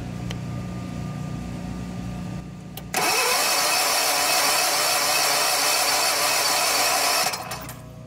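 Generac 8K standby generator's engine cranking on its electric starter without starting, spinning up with a short rising whine about three seconds in, holding an even pace and stopping near the end. It has a compression gauge in the spark-plug hole reading only about 30 psi: low compression, which the owner puts down to the piston rings probably being bad.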